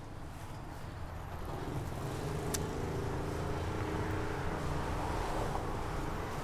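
Motor vehicle engine running in the street, growing louder over the first two seconds and then holding steady, with one faint click about two and a half seconds in.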